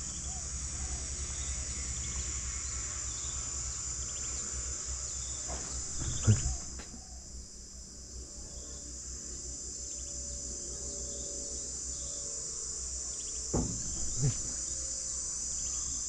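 Insects chirring steadily in a continuous high-pitched drone. A brief thump comes about six seconds in, and two more near the end.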